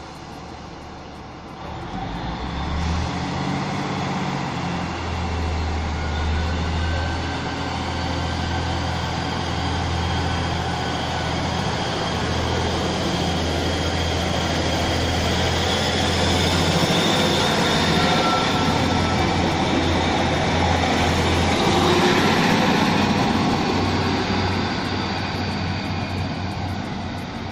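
Class 153 diesel multiple unit pulling away, its underfloor Cummins diesel engine opening up about two seconds in with a steady deep throb. The sound grows louder as the unit passes, then eases off near the end as it draws away.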